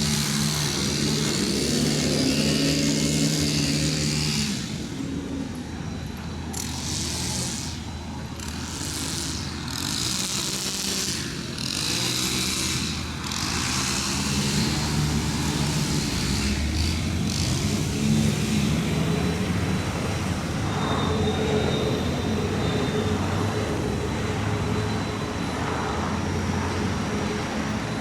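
Large demolition excavator's diesel engine running under load, its pitch rising and falling as it works. About six seconds in comes a run of rough, noisy bursts lasting several seconds.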